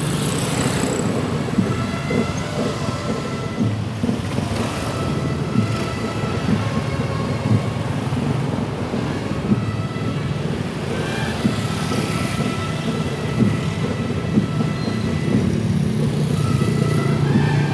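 Several motorcycle engines running at low speed in a slow-moving group, a continuous low rumble.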